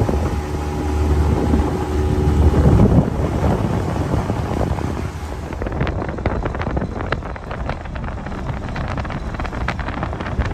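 Tiller outboard motor on a small aluminium boat running steadily under way. After about three seconds it gives way to wind buffeting the microphone, with many short crackles.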